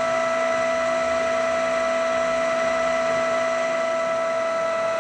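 Ooya RE2-1450D radial arm drill's spindle and geared head running with no load at 231 rpm: a steady hum made up of several fixed gear tones.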